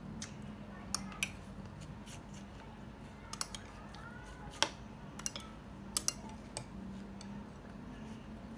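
Metal spoon clinking and scraping against a footed glass dessert bowl while scooping crushed ice and syrupy banana: a dozen or so sharp, irregular clinks, the loudest a little past halfway.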